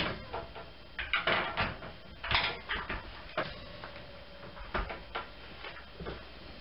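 Wooden crib back panel knocking and bumping against the crib frame as it is handled and set into place. The knocks come in an irregular string, the loudest a little after one second and again just past two seconds.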